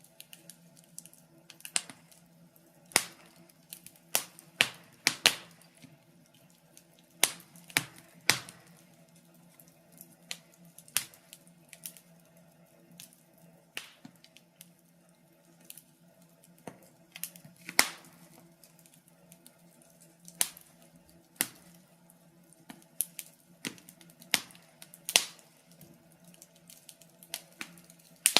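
Wood fire crackling: irregular sharp pops and snaps from the burning wood, roughly one a second with some louder than others, over a faint steady low hum.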